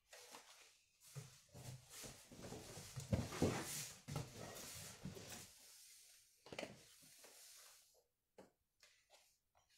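Cardboard box and packed items being handled: irregular rustling and scraping with a few knocks, loudest a few seconds in, dying away near the end.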